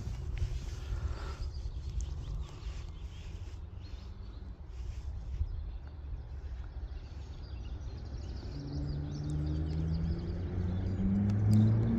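Low outdoor rumble with faint bird chirps, then from about eight and a half seconds in a motor vehicle's engine comes in, getting louder as its pitch slowly rises while it accelerates.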